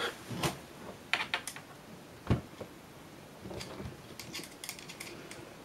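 Scattered light metallic clicks and taps as hands work the rangefinder's metal optics housing, whose two halves, held on positioning pins, are being worked apart. One duller knock comes a little over two seconds in.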